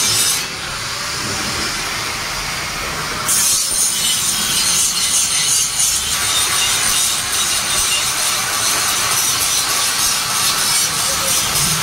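Handheld angle grinder grinding down weld joints on a steel bar grille, a steady harsh grinding of the disc on steel. About half a second in it goes quieter and duller, then bites in hard again at about three seconds.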